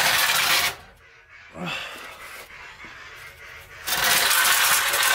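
Rusty exhaust header and catalytic-converter pipework clanking and scraping against a concrete floor as it is handled, loud at the start, quieter in the middle with a few small knocks, and loud again for the last second or so.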